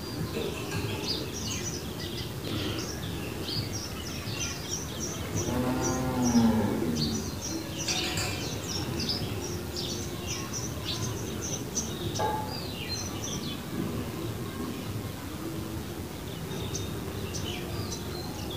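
Cattle lowing: one long moo that rises and falls about six seconds in, over many small birds chirping.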